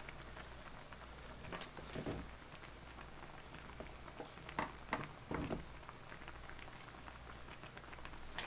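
Pot of beef tripe hot pot bubbling at a steady boil, with a few light knocks and clicks as a bottle and a juice carton are handled and set down on the table.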